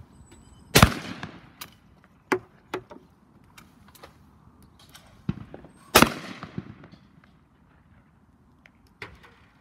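Shotgun fired twice at clay targets, about five seconds apart, each shot sharp and loud with a short echo. Fainter pops and clicks come in between and near the end.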